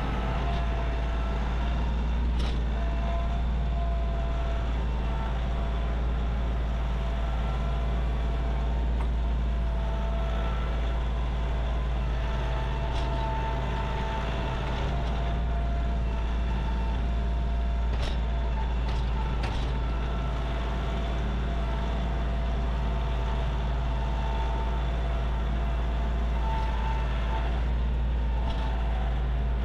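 A large engine running steadily, with a constant low rumble and a faint whine, and a few faint clicks.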